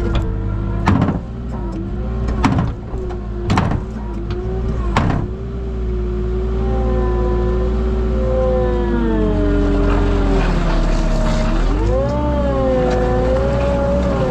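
Farm loader engine running, its pitch rising and falling as it is worked, with four sharp metal clunks in the first five seconds.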